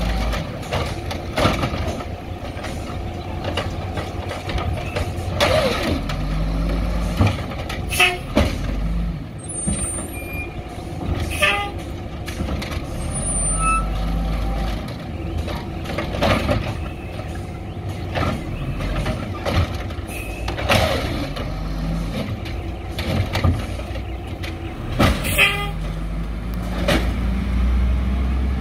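Old Peterbilt 310 garbage truck with an Amrep automated side-loader: its diesel engine revs up and down as the arm lifts and dumps carts, with about six sharp bangs as the carts are emptied and a couple of short air brake hisses.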